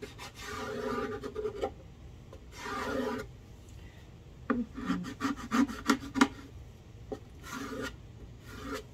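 Painter's tape being burnished down with a hand tool along the edge and into the corner of a wooden drawer: scratchy rubbing strokes in several spells, with a run of quick short strokes in the middle. Pressing the tape edge down seals it so paint cannot bleed through underneath.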